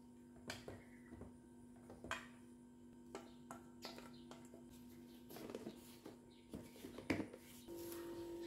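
Scattered light clicks and knocks of dishes and utensils being handled, over a faint steady hum that steps up in pitch near the end.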